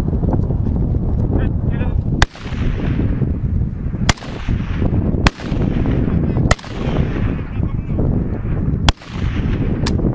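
Six single assault-rifle shots fired at uneven intervals, one to two and a half seconds apart. Each crack rings out in a long echo, with a steady low rumble underneath.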